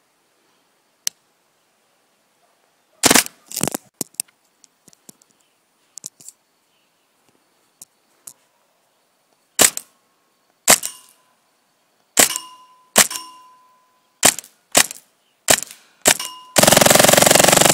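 Customized Tippmann A5 paintball marker with a home-made silencer firing single shots: about ten sharp cracks, a half-second to several seconds apart, some followed by a brief ring. Near the end it breaks into a rapid, continuous string of shots.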